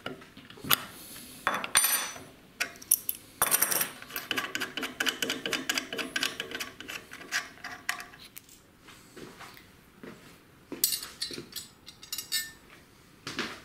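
Metal clinks, taps and rattles of a steel bolt and wrench being worked out of a freshly set blind rivet nut clamped in a vise, with a dense run of quick clicks in the middle and a few more a little later.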